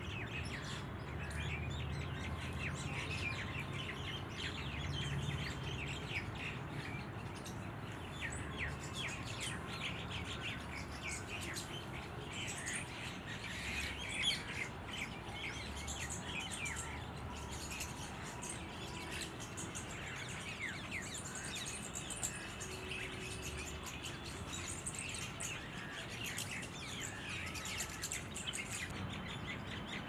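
Small birds chirping and twittering busily, many short, quick notes overlapping, over a low steady background rumble.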